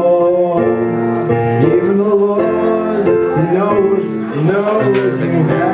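A man singing a song while accompanying himself with held chords on an Ensoniq KS-32 keyboard.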